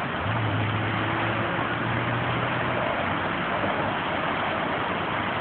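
Steady outdoor background noise with a low, even engine-like hum through the first three seconds.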